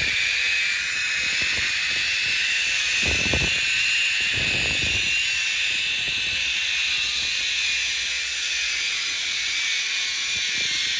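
Zip-line trolley pulleys running along the steel cable: a steady high whine over a loud hiss. A couple of low thumps come about three and four and a half seconds in.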